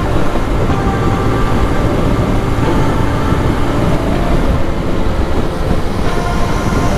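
Motorcycle riding at speed: steady, loud wind rush and road noise on the microphone, with the engine running underneath.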